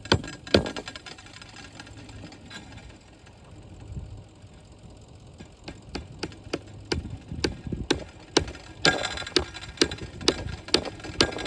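Sharp knocks and clicks from hand work on a wire fence. They are sparse at first and come quickly and irregularly, about two or three a second, from about six seconds in.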